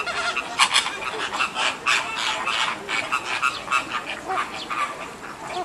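American flamingo flock calling: many short, overlapping calls following close on one another.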